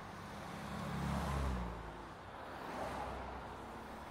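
A car driving past, loudest about a second and a half in, its engine note dropping as it moves away, over a wash of further traffic noise.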